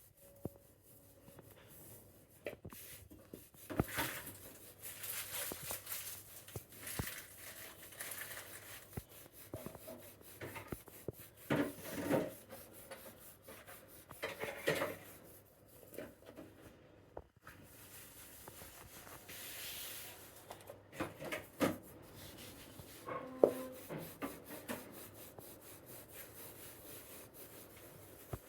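Roti dough being worked by hand and with a rolling pin: irregular rubbing and scraping, with a few sharp knocks.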